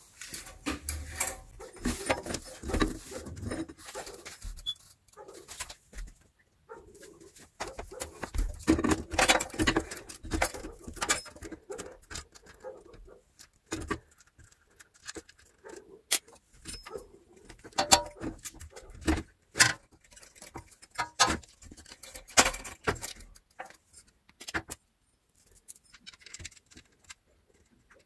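Irregular metallic clicks, clinks and scrapes as an industrial sewing machine's clutch motor and its bracket, bolts and pulley are handled and fitted into place. The clinking is busiest in the first dozen seconds and thins out near the end.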